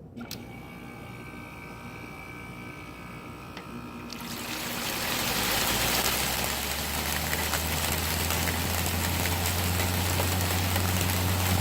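A Frigidaire 5,000 BTU window air conditioner starting up: a click, then about four seconds in its fan noise rises sharply and a low steady hum sets in as the compressor runs. Rainwater that collected in the unit splashes and trickles out of it as it runs.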